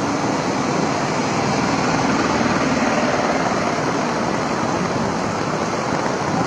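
Heavy rain pouring down onto a road and trees, a loud, steady hiss.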